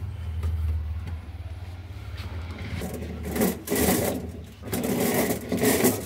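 Copper refrigeration tubing scraping and rattling against the freezer's metal inner liner as it is handled and laid into place, in loud irregular bursts from about halfway through, over a steady low hum.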